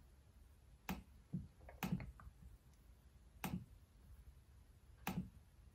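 Dell Precision 5540 laptop touchpad being pressed down, giving about five short sharp clicks at irregular intervals.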